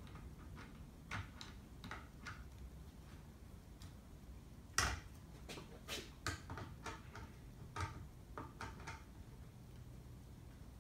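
A screwdriver turning cam locks set in a 3D-printed bracket: faint, scattered clicks and ticks, with a sharper click about five seconds in.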